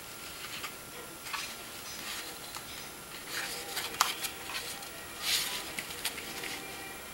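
Hands handling small camcorder accessories and their packaging: scattered light clicks and taps with brief rustles, the loudest a short rustle about five seconds in.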